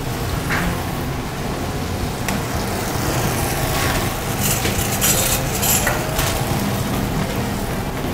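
Metal spoon scraping and clinking against a stainless steel mixing bowl as a tartare is stirred and spooned out, with a cluster of sharp clinks around the middle, over a steady noisy background.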